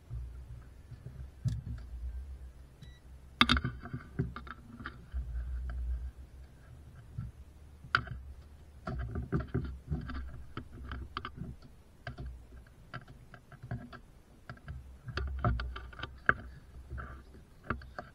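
Irregular clicks, knocks and light rattling from small hard objects being handled, with a low rumble underneath. The sharpest knocks come about three and a half, eight and sixteen seconds in.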